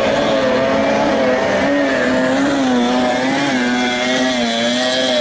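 Outboard engine of a 30 hp tunnel racing boat running at racing speed, its pitch wavering up and down continuously.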